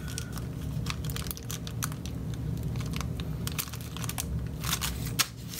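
Small clear plastic parts bag crinkling and rustling in the hands, with irregular light crackles and clicks, as a bundle of thermal fuses is worked out of it.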